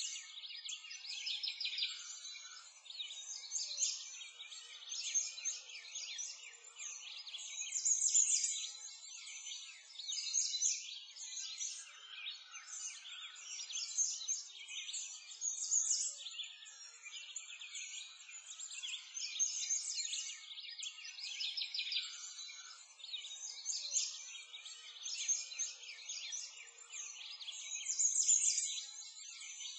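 Birds chirping and singing, a chorus of many short, high calls overlapping without a break.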